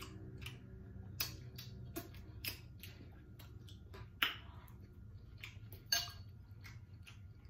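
Eating sounds: chewing and sharp mouth clicks, with a utensil clinking against a glass bowl, over a steady low hum.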